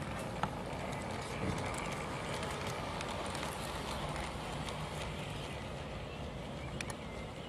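LGB garden-scale model diesel locomotive running along its outdoor track: a steady motor and gear hum, with a few sharp clicks of the wheels over rail joints and points.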